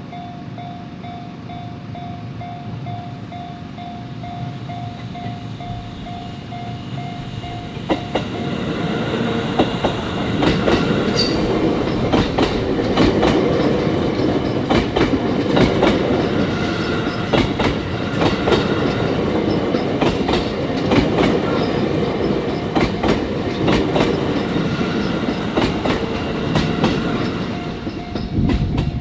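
Japanese level-crossing warning bell ringing in a steady repeated ding as a train approaches. From about eight seconds in the train passes close by, its wheels clacking in rhythm over the rail joints and masking the bell. The bell is heard again near the end as the train clears.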